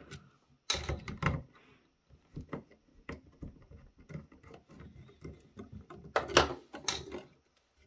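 A small screwdriver turning out the screws of a circuit board held in a plastic housing, with scattered light clicks and scrapes. Louder knocks of plastic and metal being handled come about a second in and again about six seconds in, as the board is lifted free.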